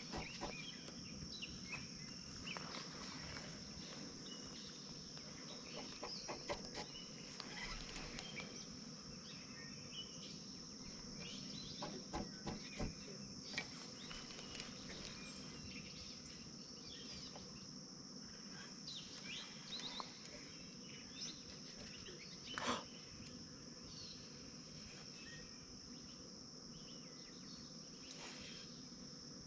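Steady high-pitched insect drone with scattered short bird chirps and a few faint clicks, and one louder knock about three-quarters of the way through.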